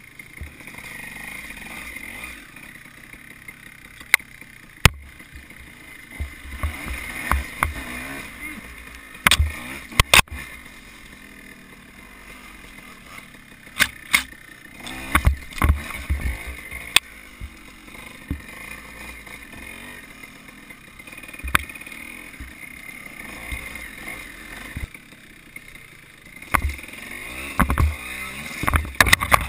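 Dirt bike engine running steadily while riding a rough wooded trail, with repeated sharp knocks and clatters and several bursts of heavy thumps as the bike bounces over roots, logs and branches.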